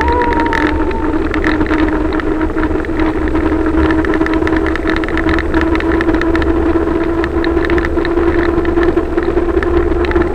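Wind buffeting a handheld phone's microphone on a fast downhill bicycle ride through a road tunnel, a steady low rumble, with a steady hum running under it.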